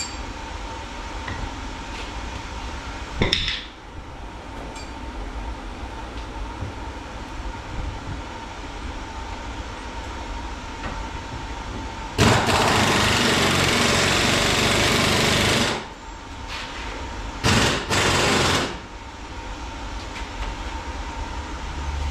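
Impact wrench hammering in one loud run of about three and a half seconds, then two short bursts, loosening 15 mm bolts.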